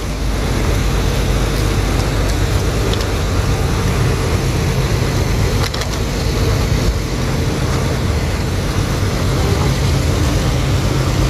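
Steady road traffic noise: cars running past on the road, with a constant low rumble.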